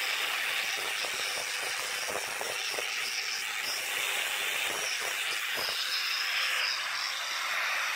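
Angle grinder with a sanding disc running steadily against plywood, grinding the piece into shape: a steady high whine over a rough sanding hiss.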